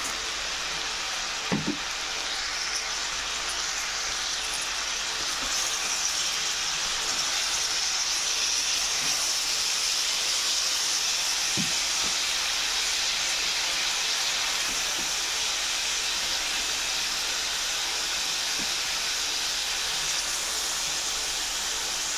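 Chopped gomen greens and beef sizzling in hot oil in a frying pan, a steady hiss that grows a little louder about six seconds in. A spatula knocks lightly against the pan a few times as the greens are stirred.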